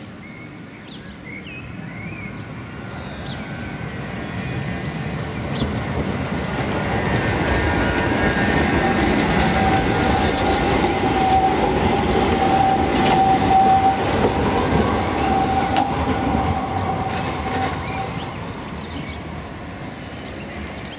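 Articulated low-floor tram approaching, passing close by and moving away. Its running noise builds, peaks about halfway through and fades toward the end, with a steady high whine through the loudest part.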